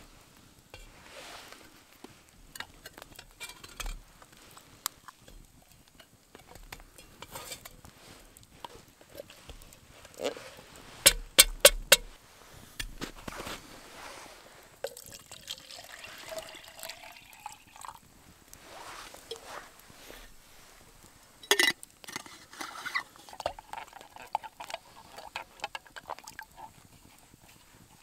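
Pull-ring tin of thick soup being opened, with a quick run of sharp metallic clicks a little over ten seconds in, then its contents scraped and plopping into a steel camping pot. Another sharp metal click comes about twenty-one seconds in, among light handling of the tin and pot.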